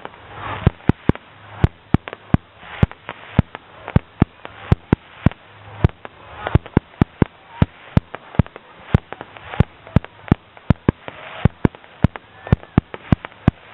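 Fireworks bursting overhead in a rapid, uneven barrage of sharp bangs, about three to four a second.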